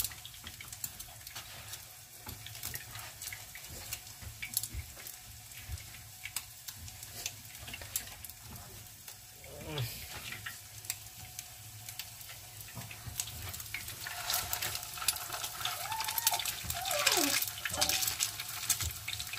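Mullet fish cakes frying in oil in a pan: a steady sizzle full of small crackles and pops, growing busier and louder near the end.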